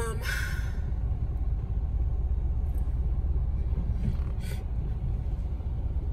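Steady low rumble of a car heard from inside the cabin: engine and road noise while driving in city traffic.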